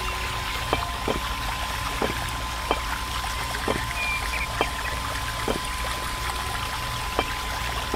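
Miniature electric water pump running with a steady tone, its stream of water pouring into a plastic tub. Sharp clicks come about once a second as tiny clay bricks are set down beside it.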